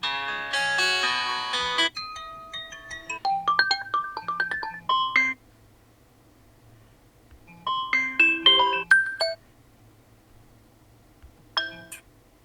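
Redmi Note 12 Pro+ default ringtones played one after another as short previews: electronic melodies of several notes, each stopping after a few seconds with a gap before the next. A third tone starts only briefly near the end.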